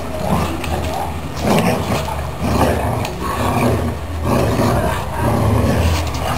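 Dogs growling in rough, repeated bursts while pulling against each other in a game of tug-of-war.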